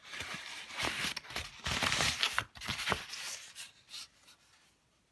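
Irregular rustling and scraping with small knocks and clicks, fading out about four and a half seconds in.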